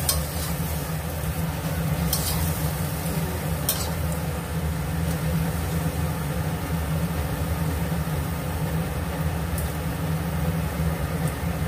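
Chinese cabbage frying in a stainless-steel wok, a steady sizzle over a low steady hum. A metal spatula stirs and scrapes against the pan a few times in the first four seconds.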